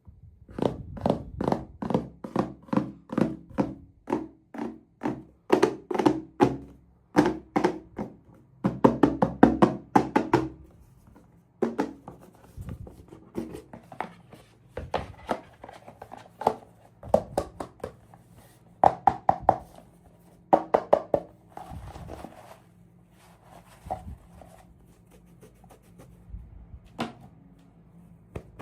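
Unboxing and handling noises: a quick run of sharp taps and knocks, about two or three a second for the first ten seconds, then fewer and more scattered.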